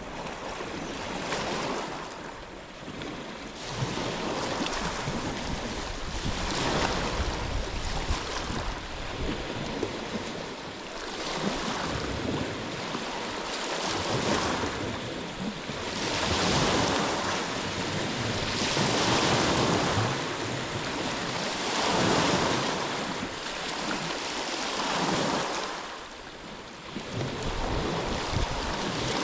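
Ocean waves breaking and washing on a shore, the surf swelling and fading every few seconds, with wind rumbling on the microphone.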